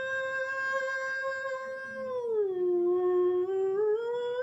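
A woman singing one long held note unaccompanied, the drawn-out 'maa' of a devotional song to Durga; the pitch slides down about two seconds in and climbs back up near the end.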